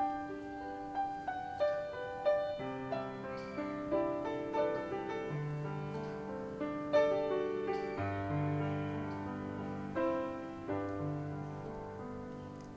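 Background music: a slow, gentle piano piece, a melody of single notes with lower held notes joining in about three seconds in.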